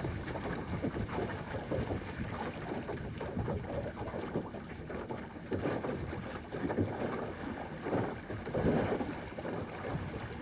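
Wind rushing over the microphone aboard a small sailing yacht under way, swelling and easing in irregular gusts, with water washing along the hull underneath.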